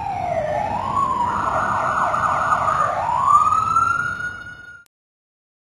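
A siren wailing, its pitch sliding down and up, then rising once more to a long high note that cuts off suddenly near the end.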